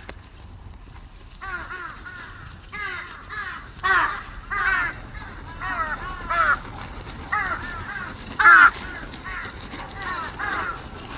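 Crows cawing repeatedly, short harsh caws in quick runs of two to four, with the loudest caw about eight and a half seconds in.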